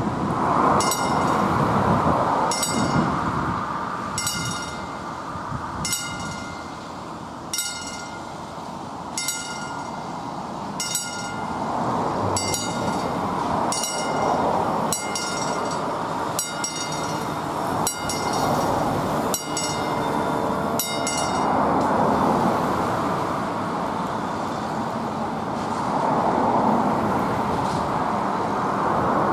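Level-crossing warning bell ringing in slow, evenly spaced strokes, roughly one every 1.7 seconds, as the crossing barriers lower. The bell stops about 21 seconds in; a steady rushing background noise, swelling and fading, runs underneath.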